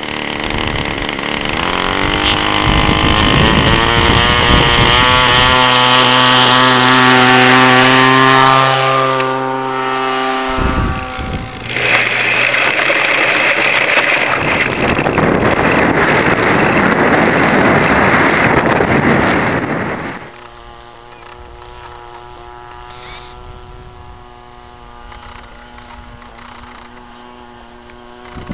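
Engine of a radio-controlled Piper Cub tow plane running up to full throttle for an aerotow takeoff, its pitch climbing over the first few seconds and then holding. About ten seconds in it gives way to a loud rush of wind and engine noise from a camera on board, and about twenty seconds in to the tow plane's fainter, steady drone high overhead.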